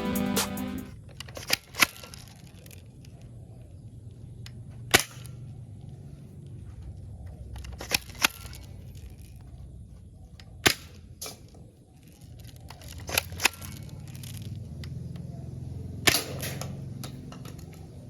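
Toy soft-bullet gun being cocked and fired: sharp, short snaps and clicks every few seconds, several coming in quick pairs, over a low steady hum.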